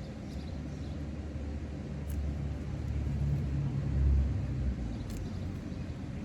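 Low engine rumble of a vehicle passing by, swelling about three to four seconds in and then fading. Two faint clicks sound, one about two seconds in and one about five seconds in.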